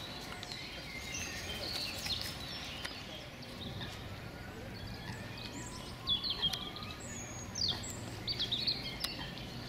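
Small songbirds chirping: short, high chirps and quick falling notes, most of them in the second half, over a steady background of outdoor noise.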